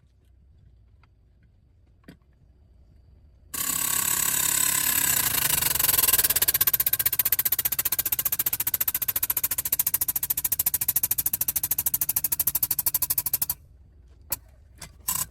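A power tool runs hard for about ten seconds with a fast, even hammering beat, starting and stopping abruptly, followed by a couple of short knocks.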